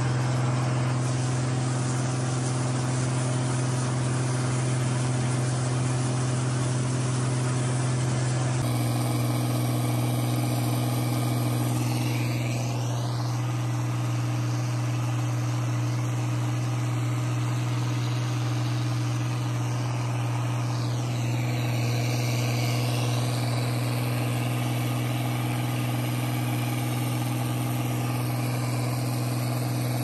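International tractor engine running with a steady, even drone while pulling a round baler through windrowed hay, heard from the operator's seat.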